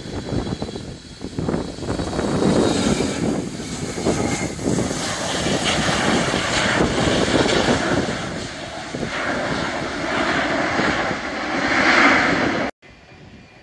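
Boeing 757 jet airliner rolling out after touchdown on a wet runway: a loud, steady jet-engine roar mixed with the hiss of spray. It builds over the first couple of seconds, swells to its loudest near the end, then cuts off suddenly.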